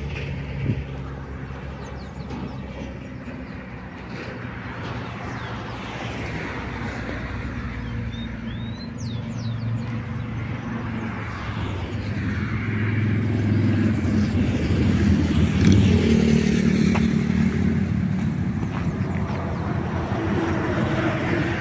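Motor vehicle engine running, its pitch shifting as it goes and its sound swelling to its loudest about three-quarters of the way through.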